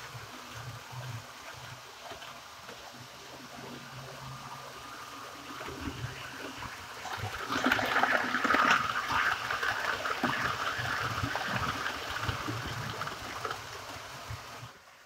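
HO-scale model trains running on sectional track, a continuous rattling rush of wheels on rails and motor hum. It swells about seven seconds in as an FS E444 electric locomotive with coaches passes close by, and drops off just before the end.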